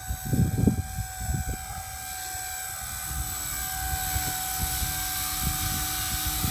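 Blade 180 CFX electric RC helicopter in flight: the steady, high whine of its brushless motor and spinning rotor. Wind buffets the microphone in the first second and a half.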